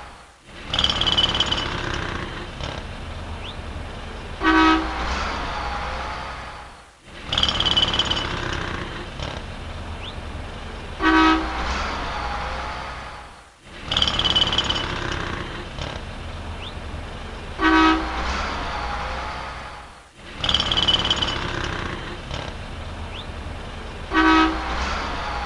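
City street traffic ambience with a low rumble, looped so that it fades out briefly and restarts about every six and a half seconds. Each pass has one short car horn honk, heard four times in all.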